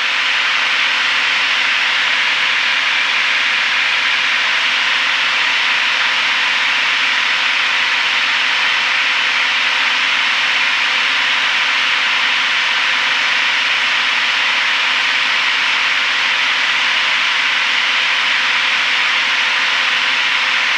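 Steady cabin noise of a Piper PA-32R Saratoga in cruise: the engine and propeller heard from inside the cockpit as an even, unchanging hiss with a faint steady hum.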